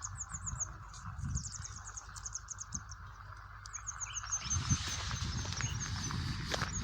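Small birds singing in quick runs of short, falling chirps over a steady murmur of running water. About four and a half seconds in, the water noise grows louder and fuller, with low knocks under it.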